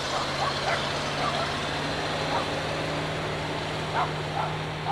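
A truck's engine running with a steady low hum, with a dog barking off and on over it.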